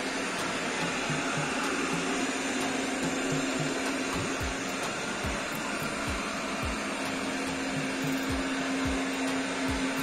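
Eufy RoboVac G10 Hybrid robot vacuum running in spot-cleaning mode: a steady suction whir with a constant hum. From about four seconds in, a low, regular pulse runs beneath it.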